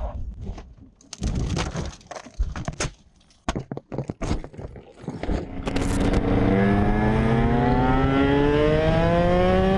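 A car crashing off the road: about five seconds of irregular impacts, scrapes and cracks as it tumbles over. Then a motorcycle engine, heard from the rider's seat, accelerating with its pitch rising steadily.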